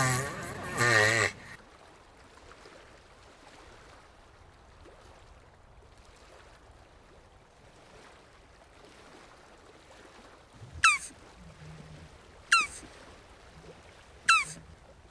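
Jabuti tortoise calls: a wavering pitched call at the start, then after a long quiet stretch three short, sharp calls about a second and a half apart, each falling steeply in pitch.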